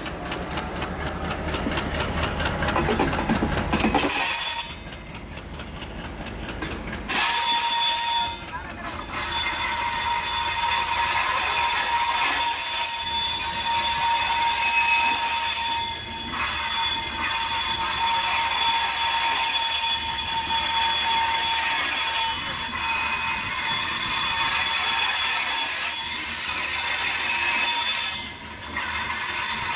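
Bangladesh Railway intercity passenger coaches rolling past on a curve, their wheels squealing against the rails in steady high tones over the running noise of the train. A heavier low rumble comes in the first few seconds, and the sound breaks off briefly a few times.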